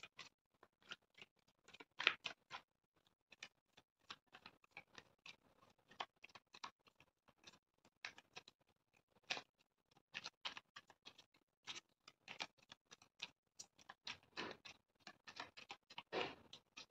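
Tarot cards being shuffled by hand: quiet, irregular flicks and taps of cards sliding against each other, a few louder ones scattered through.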